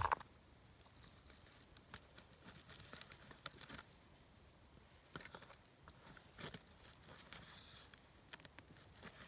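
Faint knife cuts and scrapes as pale meat is sliced on a birch-bark chopping board: a few soft, scattered ticks with quiet between them.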